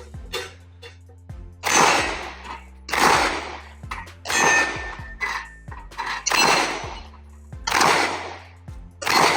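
Slow, steady fire from a 9mm Glock 17 pistol: about six loud shots, roughly one every second and a half, each with a short ringing tail, most likely the hits on steel dueling-tree plates. Background music plays underneath.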